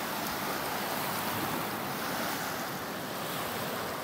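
Steady rush of a large river in flood, an even unbroken wash of water noise.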